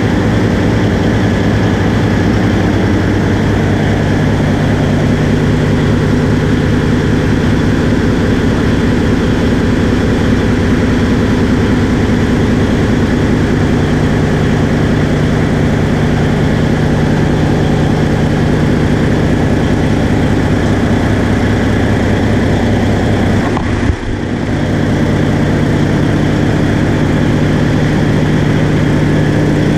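Caterpillar C18 inline-six marine diesel engine with electronic fuel injection, running steadily at idle with a deep, even drone, heard close up in the engine room. The sound dips briefly once, about three-quarters of the way through.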